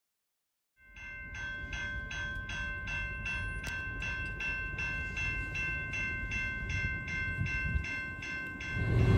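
Railroad grade-crossing bell ringing in an even rhythm, about two and a half strikes a second, over the low rumble of an approaching freight locomotive that swells near the end.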